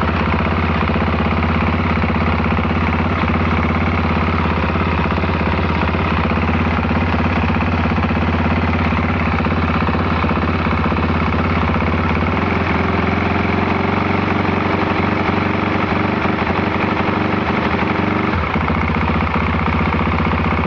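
Can-Am DS 450 ATV's single-cylinder four-stroke engine idling steadily, its note shifting slightly near the end.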